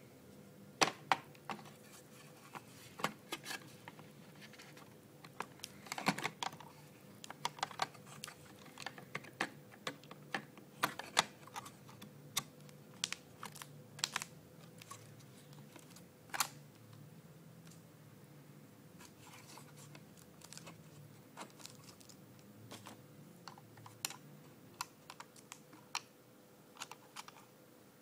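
Irregular light clicks and taps as a 2.5-inch Western Digital hard drive is handled against the metal and plastic of a mini PC's drive bay while being fitted, over a faint steady hum.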